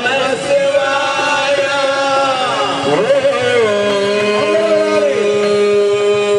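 Male voice chanting a Hindu devotional Ayyappa bhajan into a handheld microphone, holding long notes. About three seconds in, the pitch slides down and settles on a lower held note.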